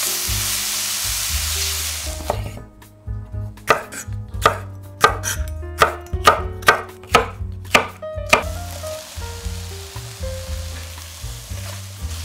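Onions sizzling and frying in a stainless steel sauté pan, then a knife chopping on a wooden cutting board, about fifteen sharp chops that quicken toward the end, then sizzling again as sliced bell peppers fry in the pan.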